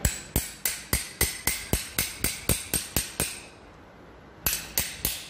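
Hammer striking a steel swaging punch driven into the end of a copper refrigerant pipe clamped in a flaring bar, expanding the pipe end so a pipe of the same size can slide into it for brazing. A quick run of about a dozen sharp blows, about four a second, then a pause of about a second and the blows start again near the end.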